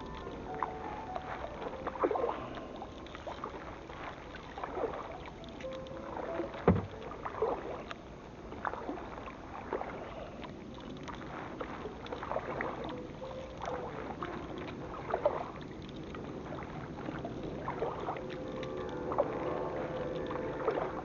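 Canoe paddling on the sea: paddle strokes splashing in the water every second or two over steady water noise.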